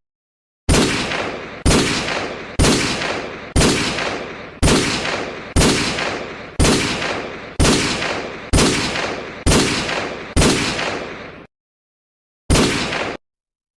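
Desert Eagle pistol fired eleven times in steady succession, about one shot a second, each crack trailing off in a short echoing tail. After a pause of about a second, one more shot is cut off abruptly.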